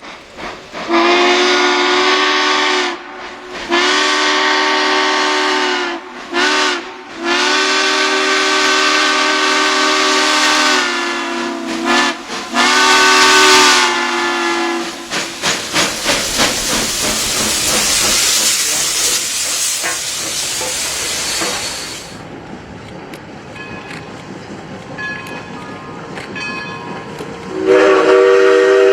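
Steam locomotive whistle sounding a chord in a series of about five blasts, some short and some long, followed by a rushing hiss of steam with rapid chuffing pulses. Near the end a new loud whistle or horn blast begins.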